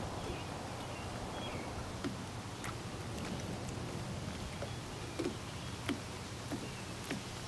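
Steady outdoor background hiss and low hum, with a few faint high chirps early on and scattered soft ticks later.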